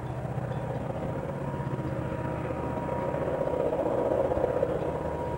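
A train approaching, a steady low rumble that grows louder about four seconds in.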